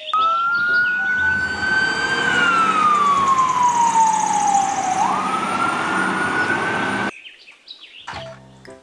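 Fire engine siren wailing over a steady background noise. Its single tone climbs, falls slowly, then climbs quickly again and holds, and it cuts off suddenly about seven seconds in.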